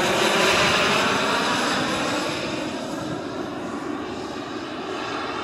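Engines of a giant-scale radio-controlled model Avro Vulcan bomber in flight, a steady rushing jet-like noise that is loudest about half a second in and then slowly fades as the model flies away.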